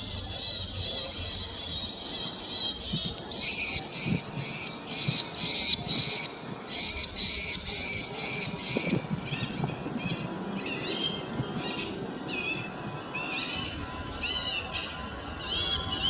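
Airport bird-scaring system playing recorded bird calls over loudspeakers: a run of loud, harsh calls repeated about twice a second, giving way to shorter, varied chirps in the second half.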